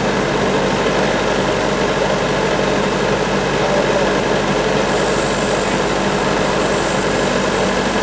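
Large thin-kerf band sawmill running steadily, its blade cutting through a cypress log: an even machine hum under the noise of the cut.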